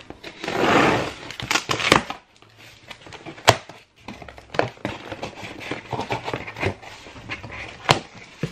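Scissors slitting the packing tape along a cardboard box seam, a loud tearing rasp about a second in. This is followed by cardboard flaps being pulled open and packaged items inside rustling and knocking, with a couple of sharp clicks.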